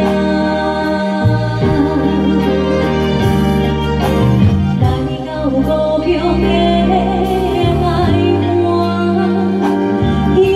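Woman singing a slow, lyrical Hokkien song live into a microphone, backed by a band with held keyboard chords, bass and light cymbals.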